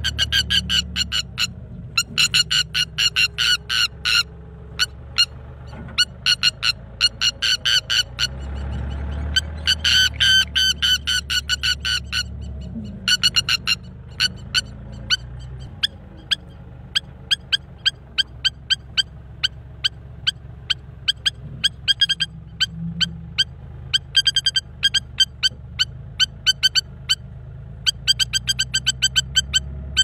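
Lapwing giving rapid, sharp alarm calls over and over in long runs with short breaks while defending its eggs. A machine's engine hums low underneath.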